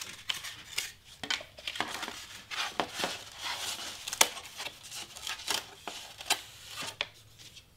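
Craft knife blade scoring through heavy cardstock on a cutting mat: irregular short scratchy strokes and clicks, with the card rustling as the cut piece is worked free, and one sharper click about four seconds in.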